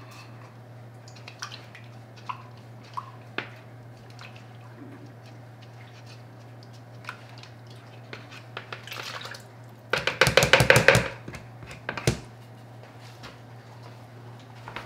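Water poured from a plastic measuring cup into a plastic mixing bucket: a short burst of pouring and splashing about ten seconds in, with a brief second splash just after. Before it come light clicks of the plastic cups being handled, over a steady low hum.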